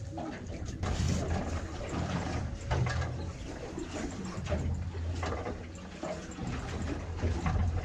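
Sea water slapping and splashing against the hull of a drifting boat, in uneven irregular bursts, over a steady low rumble of wind on the microphone.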